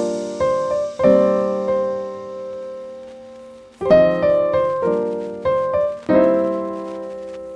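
Background piano music: slow chords struck one after another and left to ring and fade.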